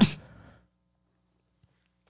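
A spoken phrase trails off in the first half second, then near silence with only a faint steady low hum: room tone.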